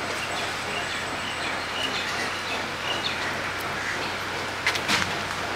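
Steady outdoor background noise with a few short, high bird chirps, and a couple of brief clicks near the end.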